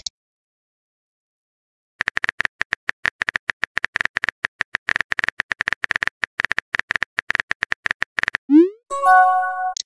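Simulated smartphone keyboard typing: rapid short key-tap clicks for about six seconds, starting about two seconds in. Near the end, a rising swoosh and a short electronic chime as the text message is sent.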